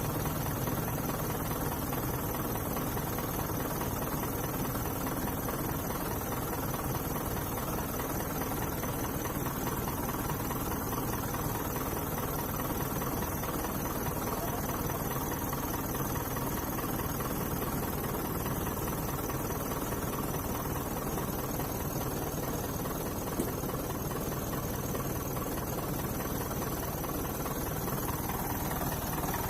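Vehicle engine running steadily with no breaks.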